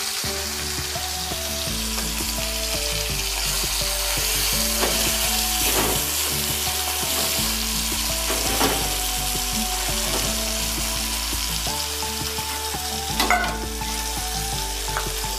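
Halved cherry tomatoes sizzling steadily in hot oil in a non-stick pan as they cook on a low flame. A silicone spatula stirs and scrapes the pan a few times.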